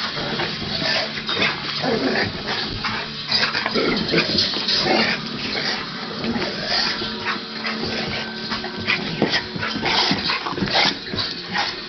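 Two large mixed-breed dogs, a Lab/Mastiff and a Pit/Chow, play-wrestling, with a rapid run of short growls and barks.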